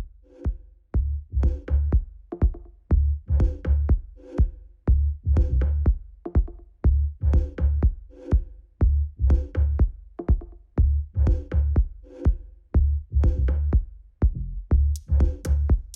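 Electronic dance music with a steady drum-machine beat, about two heavy kicks a second.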